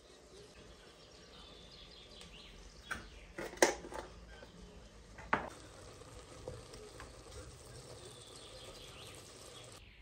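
Wooden spoon stirring grated carrot halwa in an enamel pot, with a faint steady sizzle from the pot. There are a few sharp clinks against the pot, the loudest about three and a half seconds in and another just after five seconds.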